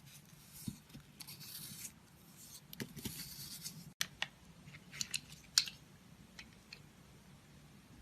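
Blade cutting and scraping through a bar of soap: two stretches of soft scraping, then after a break several short crisp clicks a second or so apart as the soap is cut through.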